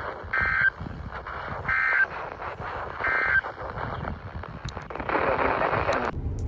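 Three short warbling data bursts from the Emergency Alert System's SAME encoder, each about a third of a second long and evenly spaced about a second and a half apart. They are the brief end-of-message code that closes a weather radio alert, heard over radio static. Near the end the static cuts off and a new electronic tone burst begins.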